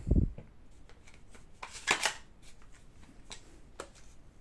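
Handling noise from an airsoft rifle with a mounted scope being lifted and shouldered: a dull thump at the start, a quick cluster of clicks and rattles about two seconds in, and a few light ticks after.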